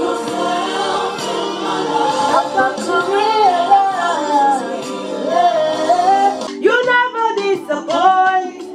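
Gospel song playing: voices singing over instrumental backing. About six and a half seconds in, the singing breaks into shorter, separated phrases.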